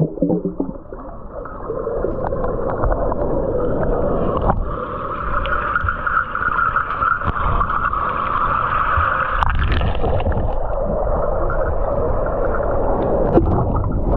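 Muffled, steady underwater noise picked up by a microphone held under the water, with the high sounds cut off. It brightens about four and a half seconds in and dulls again near ten seconds.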